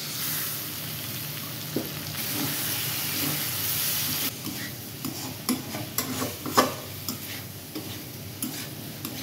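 Potato and cauliflower sabzi sizzling in a metal kadhai, a steady hiss for about the first four seconds, then a steel spatula stirring it, scraping and clicking against the pan.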